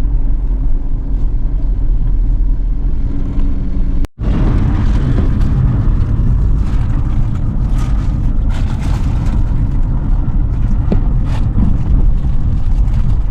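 Car driving along a road: steady low engine and tyre rumble. It cuts out for a moment about four seconds in, then comes back louder with scattered knocks and rattles.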